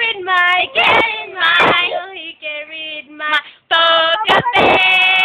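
A child singing in a high voice, with long held notes broken by short pauses.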